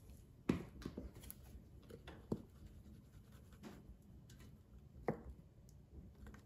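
Plastic seasoning shaker shaken over cod fillets in an air fryer basket: a few sharp taps with faint handling noise in between.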